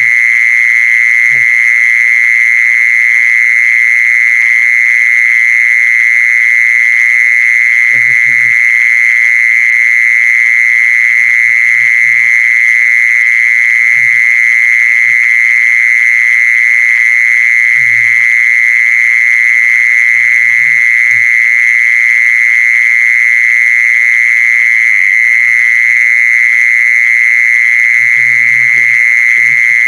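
Call-lure recording of a bird: short low calls every few seconds over a loud, steady high-pitched whine that never changes.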